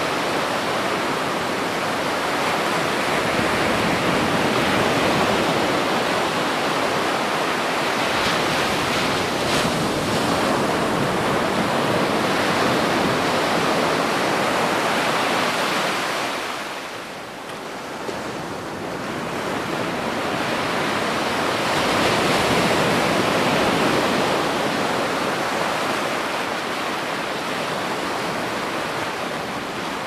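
Ocean surf: waves washing in as a continuous rushing sound. It eases off briefly a little past halfway through, then builds up again.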